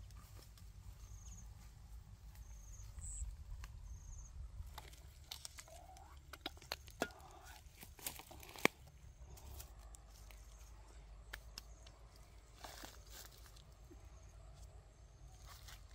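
Dry grass and straw crackling and a wicker basket being handled, with several sharp clicks and taps between about five and nine seconds in. A short high chirp repeats about every second and a half in the background.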